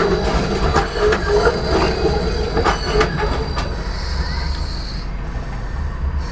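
A three-section E-class Melbourne tram rolls past close by, heard from inside a car, with irregular clicking of its wheels over the rails and a high wheel squeal as it takes the turn. The clicking dies away after about three and a half seconds as the tram clears.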